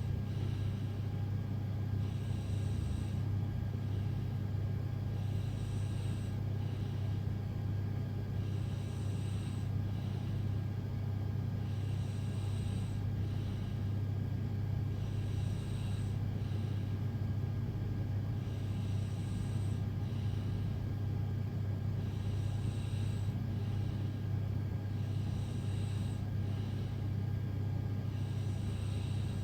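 A sleeping woman snoring lightly: a soft hissy breath about every three seconds, even and unbroken, over a steady low hum.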